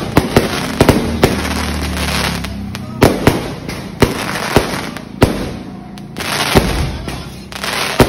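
Aerial fireworks shells bursting overhead: about a dozen sharp bangs at uneven intervals, with a crackling hiss between them.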